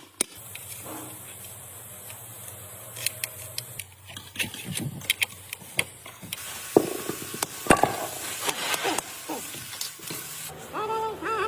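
A steady high hiss runs until near the end, over a low hum, with scattered sharp clicks and metal knocks from parts being handled.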